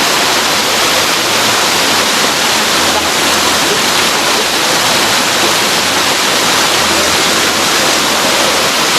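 Waterfall of the Sungai Kooi pouring down fast onto rocks close by: a loud, steady rush of falling water.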